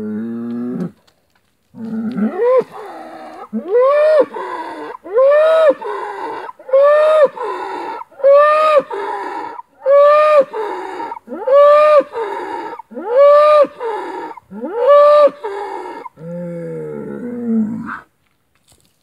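Bull bellowing loudly: a short low call, then a long run of calls about one a second, each rising in pitch and then holding, ending with a lower, drawn-out call.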